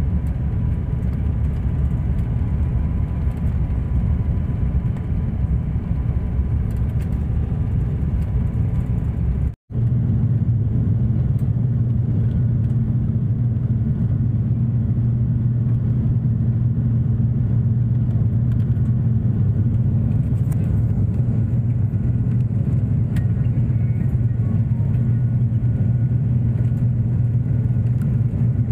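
Cabin noise of an ATR 72 twin-turboprop airliner on approach: a loud, steady, low drone of engines and propellers heard from a window seat. The sound cuts out for a moment about ten seconds in, then comes back with a stronger steady hum.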